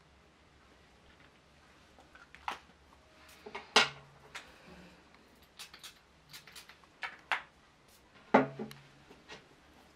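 Small hard objects being handled and set down on a hard surface: a scattered series of clicks and knocks, two of them louder, about four seconds in and again near the end.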